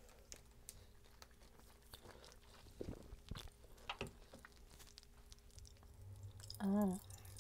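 Cola-flavoured popping candy (Pachi Pachi Panic, a Pop Rocks–style candy) crackling in a mouth: many small, irregular pops and clicks, with some chewing.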